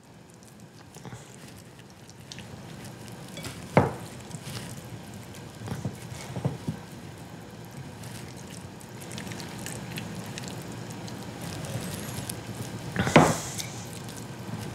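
Wet squishing of oily mashed fried green banana being squeezed and rolled into balls by hand, a moist sound. A few sharp knocks cut through, one about four seconds in and the loudest near the end.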